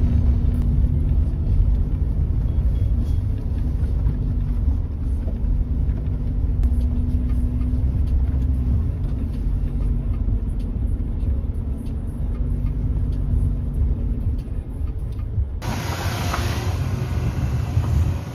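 Steady low road rumble of a car being driven, heard inside the cabin. About three-quarters of the way through it changes abruptly to a brighter, hissing sound.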